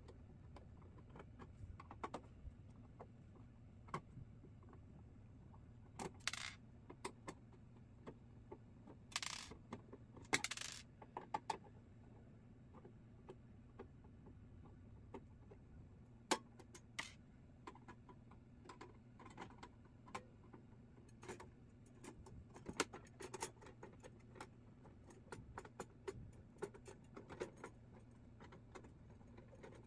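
A Phillips screwdriver backing small machine screws out of a fog machine's sheet-metal panel: scattered metallic clicks and a few short scrapes, with loose screws clinking as they are set down.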